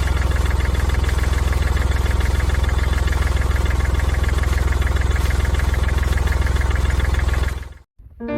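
Vehicle engine idling steadily with an even low throb, stopping shortly before the end.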